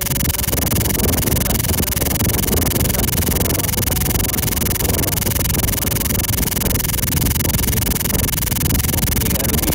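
Steady rough, rumbling noise on a phone's microphone, with no clear tone or voice in it.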